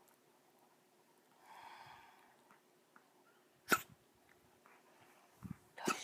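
Dog with a tracheal stent coughing: two short, sharp coughs, one a little past the middle and one near the end, after a softer breathy sound about one and a half seconds in. This is the cough after a tracheal stent has been placed.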